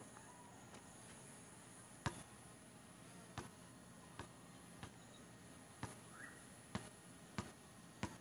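Basketball bouncing on an outdoor hard court: a slow dribble of single sharp bounces, eight in all, from about two seconds in, roughly one a second.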